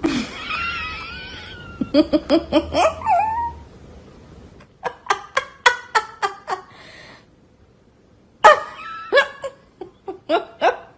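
A wavering high-pitched cry, then people laughing in three bouts of rapid, repeated pulses, the first about two seconds in and the last near the end.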